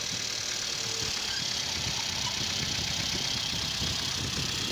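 Mercedes C200's four-cylinder engine running at a steady idle, just started after a thermostat replacement and coolant refill.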